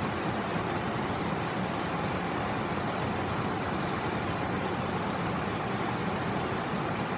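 Shallow river water rushing steadily over a low, wide rock step: the continuous even rush of a small cascade.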